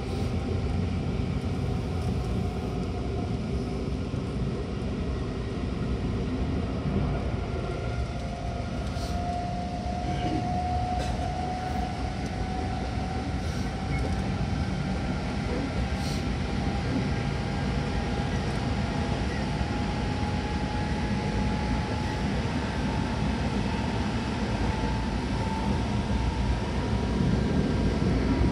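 Seibu 6000 series electric train running, heard from inside the car: a steady rumble of wheels on rail, with the Hitachi GTO-VVVF traction motor whine slowly rising in pitch.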